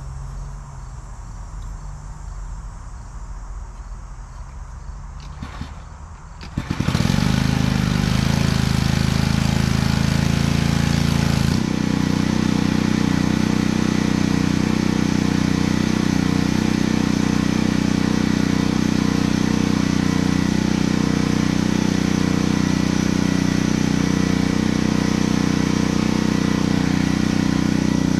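Small gas engine, most likely the pressure washer's, starting abruptly about a quarter of the way in and then running steadily, its sound shifting once a few seconds later before settling.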